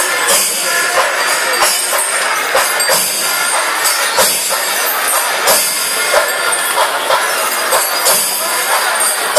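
Loud traditional Kerala temple percussion: drums struck in a dense, clattering rhythm over a continuous bright clash of cymbals.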